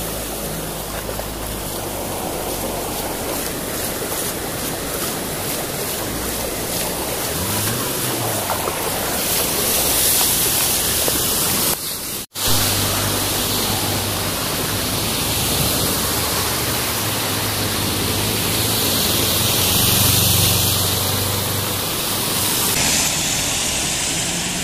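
Steady rush of water and road noise from a vehicle driving through floodwater on a wet road, with a low engine hum underneath. The sound cuts out for a moment about halfway through.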